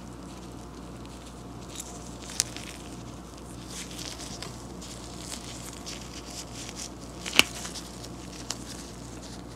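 Nitrile gloves rustling and crinkling as small ratchet parts are handled, with a few light clicks, the sharpest about seven seconds in, over a faint steady hum.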